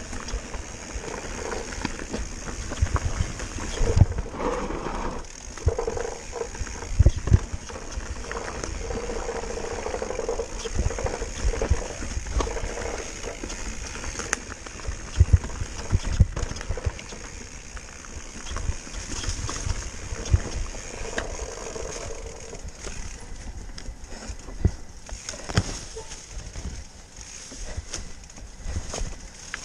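Enduro mountain bike descending a rough dirt-and-rock forest trail at speed: steady tyre and trail noise with the bike rattling, and frequent irregular thuds as the wheels hit rocks and bumps.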